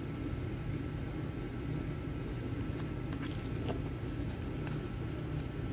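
Steady low background hum with a few faint taps and rustles of a stack of trading cards being handled and squared up.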